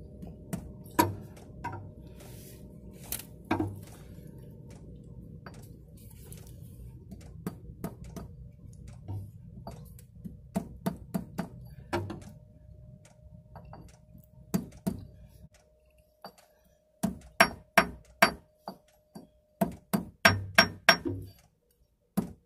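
Hammer blows on a metal drift block, driving a new twin-lip rear oil seal into the output housing of a Turner T5A gearbox. Scattered metallic taps at first, then a run of harder, evenly spaced blows, about two a second, in the second half as the seal is worked in flush.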